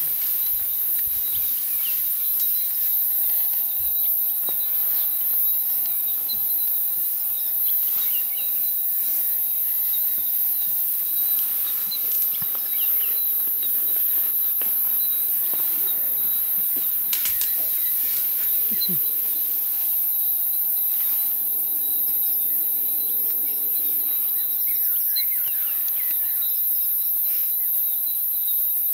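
A steady high-pitched insect chorus with scattered short bird chirps. A few sharp snaps come near the middle.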